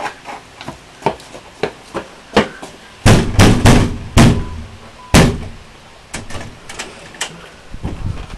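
Fist pounding hard on a glass-paned storm door: a run of about five heavy blows between about three and five seconds in, after lighter evenly spaced taps.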